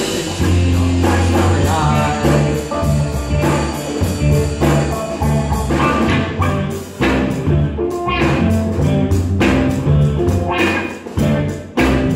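Live rock band playing: electric guitars, bass guitar and drum kit, with regular drum hits and a pulsing bass line.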